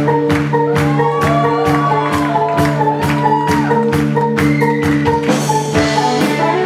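Live rock band playing an instrumental passage: drum kit keeping a steady beat under electric guitar and keytar, with a lead line that bends up and down in pitch.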